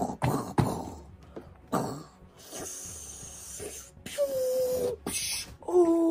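Squishy Hulk Goo Jit Zu stretch toy, filled with water beads, being squeezed and pressed against a table. Soft knocks come first, then a hissing squelch, then two drawn-out rubbery squeaks near the end.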